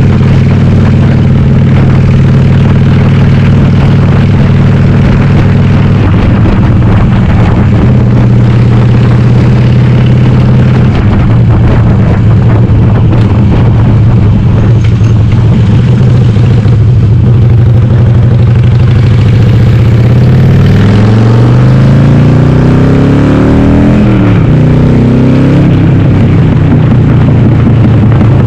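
Harley-Davidson Sportster 883R's air-cooled V-twin, upgraded to 1200, running loud through Cobra Speedster 909 pipes with the dB killers removed. It holds a steady pace, then about two-thirds of the way through it accelerates with the pitch climbing, shifts up, and climbs again before settling.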